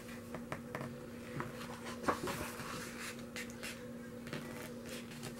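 Pages of a paperbound photo book being handled and turned: soft paper rustles and taps, with a sharper paper flick about two seconds in, over a steady low hum.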